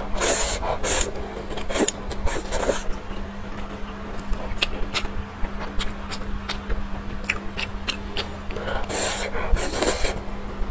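Close-miked slurping of instant noodles, with bursts of slurping near the start and again near the end, and small wet chewing clicks between them.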